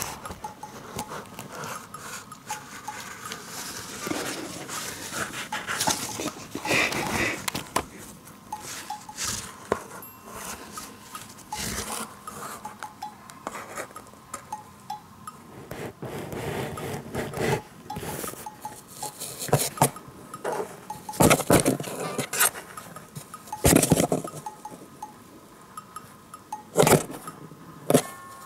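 Irregular rustling, scraping and knocking of cardboard as a cat paws and bats at a cardboard cutout and box. Several sharper knocks come in the second half.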